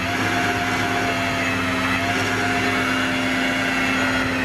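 Flatbed tow truck running with its PTO engaged, giving a steady mechanical whine from the hydraulic drive that works the winch.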